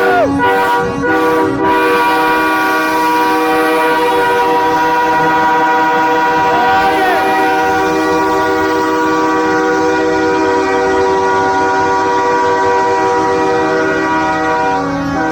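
Several truck air horns blaring together in one long, steady chord, with a horn sliding up and back down in pitch about seven seconds in.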